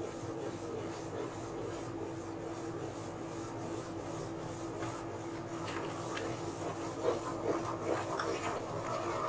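Wooden spatula stirring semolina in a nonstick pan as it is poured into simmering water, a faint steady scraping with a few louder scrapes and clicks in the second half. A steady low hum runs underneath.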